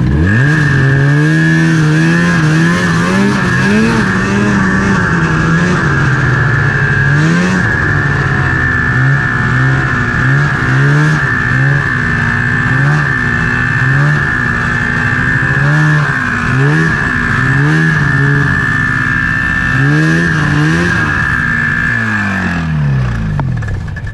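Ski-Doo Summit snowmobile engine running under the rider's throttle, its pitch rising and falling with a steady high whine on top. Near the end the revs sink and the engine winds down as the sled stops in deep snow.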